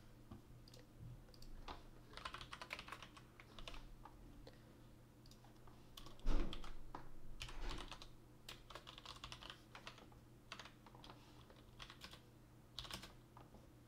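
Typing on a computer keyboard in short runs of key clicks, with one heavier thump about six seconds in.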